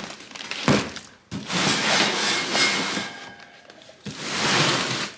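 Cardboard box and its wrapping handled on a hard floor as a new radiator is worked out of it: a thunk under a second in, then two stretches of rustling and scraping cardboard and plastic wrap.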